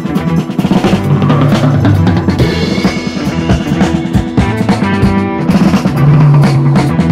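Background music with a drum-kit beat.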